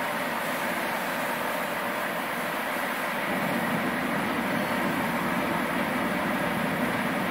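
Steady mechanical hum of a MultiPro water cooler running, its pump circulating coolant for a spot welder's gun.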